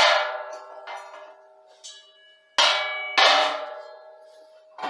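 Metal clanking and ringing as a sheet-metal funnel with shortened legs is set down and shifted on the steel top of a 20-gallon compressor tank. There are several clanks, the loudest at the start and twice about three seconds in, each ringing on with a bell-like tone.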